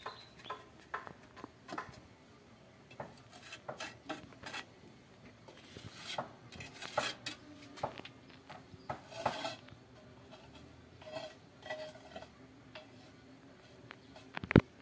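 Metal trowel scraping and clinking against a pan and bucket while scooping and spreading cement mortar: irregular scrapes and clinks, a few briefly ringing, with one sharp knock near the end.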